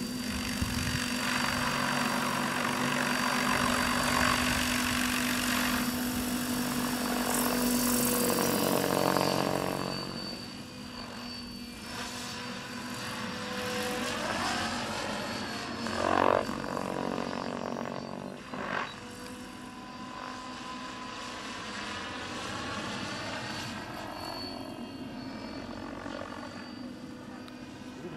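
Diabolo 700 radio-controlled helicopter in flight, its rotor and drive whining and rising and falling in pitch as it swoops and passes overhead, with a brief loud rush about sixteen seconds in.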